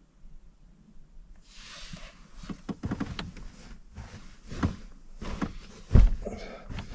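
Bedding being handled: a rustle about a second and a half in, then scattered knocks and clicks, and one heavy thump about six seconds in.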